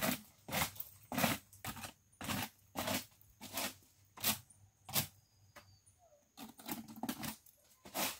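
Repeated scraping strokes of a long-handled yard tool against the ground, about one every half second, each brief and hissy, with a short pause around six seconds in.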